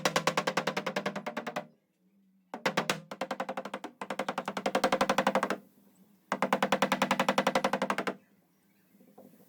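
Rapid mechanical tapping on car body sheet metal, about ten strikes a second, in four bursts of one and a half to two seconds with short pauses between them, while the low spots of a pulled dent are being worked out.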